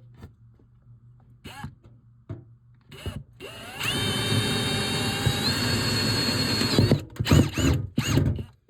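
Electric drill drilling out a screw hole to the correct size for a rivnut. It runs steadily for about three seconds, its pitch rising as it spins up and stepping higher once partway through. Then come a few short bursts on the trigger before it stops.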